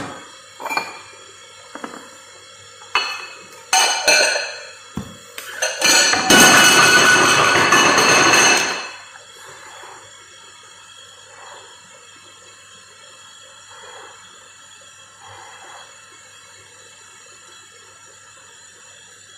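Dishes and kitchen utensils clinking and knocking several times, then water running hard for about three seconds starting about six seconds in. After that only a few faint knocks.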